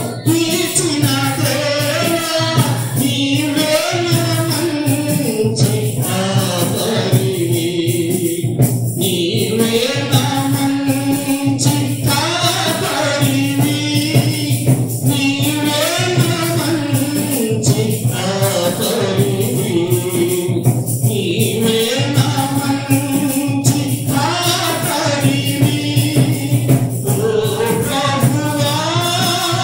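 Telugu Christian devotional song: voices singing a melody over music with a steady percussive beat.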